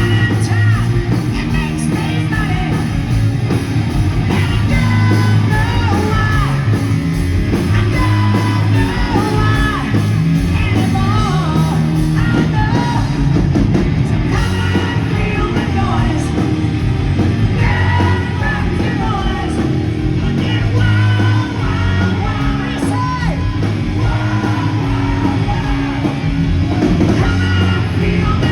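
1980s hard rock song played loud: a band with a steady driving beat and a male singer belting and shouting the vocals.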